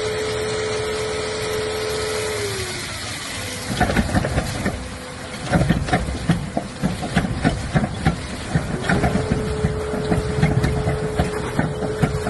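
Rotary drilling rig at work: a steady mechanical whine that sinks in pitch and fades about two seconds in. Irregular knocking and clattering follow, and the whine comes back steady near the end.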